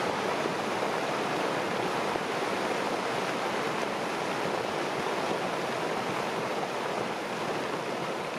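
Rushing, churning water making a steady, unbroken noise.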